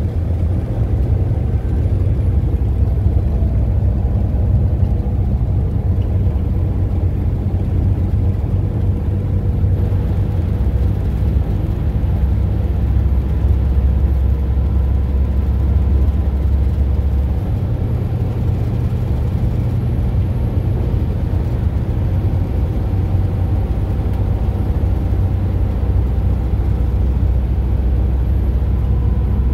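Coach bus driving at road speed, heard from inside the passenger cabin: a steady low rumble of engine and road noise.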